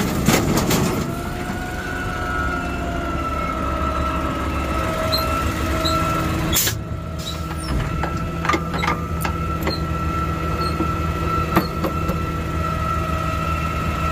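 Diesel garbage truck idling with its PTO hydraulics running, a steady whine over the engine rumble. A few sharp metallic clicks and knocks come in the second half.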